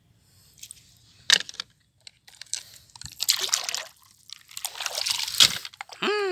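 Water sloshing and splashing in short spells as small toy vehicles are rinsed by hand, with a sharp click about a second in and a falling vocal exclamation near the end.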